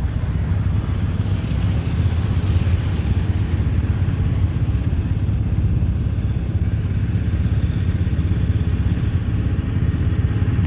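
Ram 4x4 pickup's engine running with a steady low rumble while the truck sits stuck in mud, its rear wheel throwing up mud and smoke.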